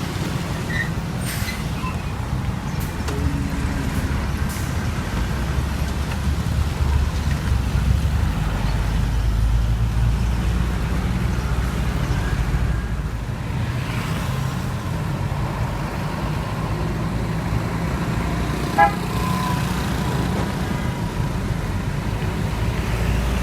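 Heavy truck diesel engines running with street traffic, the low rumble swelling for several seconds in the middle. Near the end a brief horn toot sounds.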